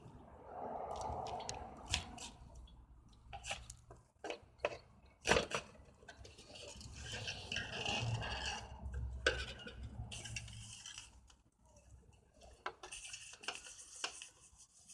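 Clicks, knocks and scraping as wire is handled and worked through a homemade wire stripper, with light metallic clattering.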